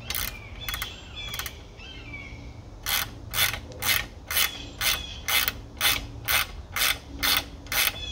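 Socket ratchet wrench clicking as it runs down a fastener on the lower unit of an outboard. A few loose clicks come first, then from about three seconds in a steady back-and-forth at about two strokes a second.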